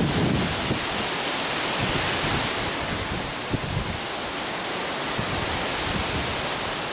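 Steady rush of storm wind and choppy open water, with gusts buffeting the microphone, most strongly near the start.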